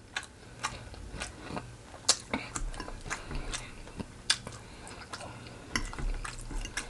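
A person biting and chewing fried chicken close to the microphone: irregular wet mouth clicks and crunches, a few of them sharper about two and four seconds in.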